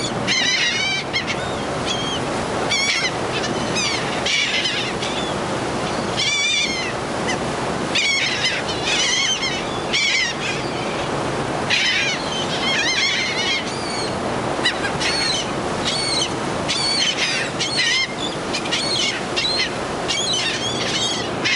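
A flock of seagulls calling overhead: many short, wavering cries, often overlapping, repeated all through, over a steady background rush.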